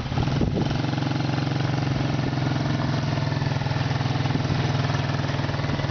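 The Venom ATV-125F's 125 cc air-cooled, carburetted single-cylinder engine idling steadily. It is uneven for the first half-second, as if just catching, then settles into an even idle.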